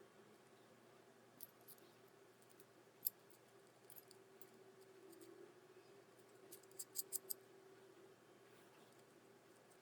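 Near silence over a faint steady hum, broken by light clicks: a sharp single click about three seconds in and a quick run of four or five clicks around seven seconds.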